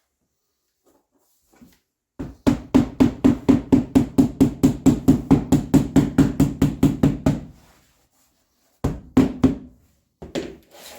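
Vinyl plank flooring being tapped down to lock the click joints: a fast, even run of knocks, about six a second, for roughly five seconds, then two short bursts of knocks.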